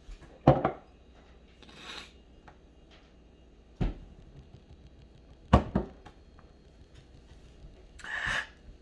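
A few sharp knocks, as of a cup being handled and set down on a table: one about half a second in, one near four seconds and a quick pair a little later. There are short breathy sounds in between, one around two seconds and one near the end.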